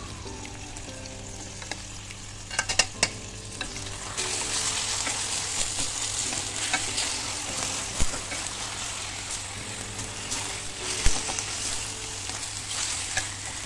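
Raw chicken strips sizzling as they fry with onions in a metal pan, the hiss growing louder about four seconds in. A wooden spatula stirs them, knocking and scraping against the pan a few times.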